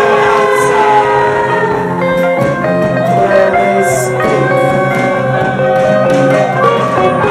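Live band music: several voices singing together in long held notes over strummed guitar, with a few cymbal hits.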